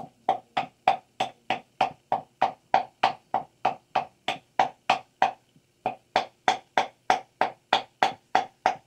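Pestle pounding moringa seeds in a small wooden mortar: steady, evenly spaced knocks about three a second, with a brief pause a little past halfway.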